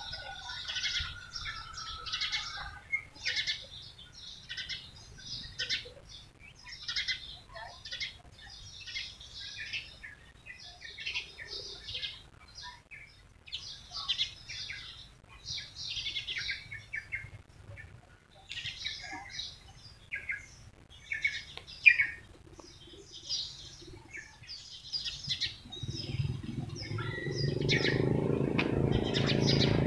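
Small birds chirping in short, repeated bursts. In the last few seconds an engine draws closer and gets steadily louder.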